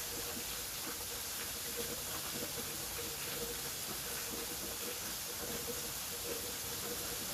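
Waterfall: a steady rush of falling water, an even hiss with no breaks, and a faint steady hum underneath.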